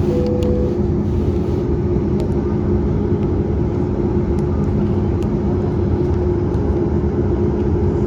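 Boeing 737 MAX 8's CFM LEAP-1B engines heard inside the passenger cabin: a loud, steady rumble with a low hum over it.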